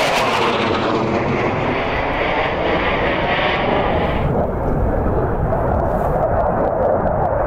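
MiG-29 fighter's twin turbofan engines, loud jet roar as the aircraft passes overhead. The higher hiss fades about four seconds in, leaving a lower rumble.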